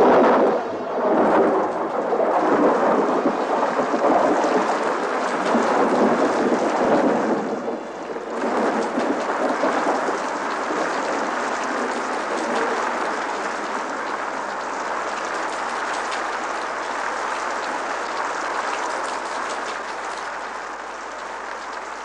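Thunderstorm with heavy rain: a sudden loud crack of thunder at the start, rolling thunder for the first eight seconds or so, then steady pouring rain.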